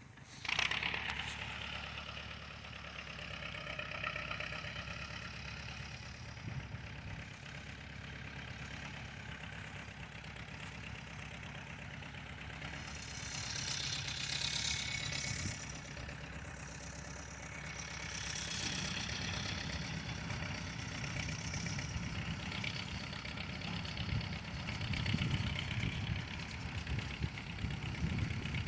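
Tractor engine running steadily while baling hay, coming in abruptly just after the start.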